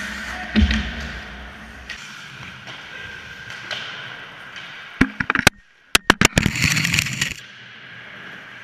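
Ice rink sounds of skates and play, then about five seconds in a burst of sharp knocks and clatter with a brief dropout, followed by about a second of scraping, as the hockey goal carrying the camera is knocked over onto its back.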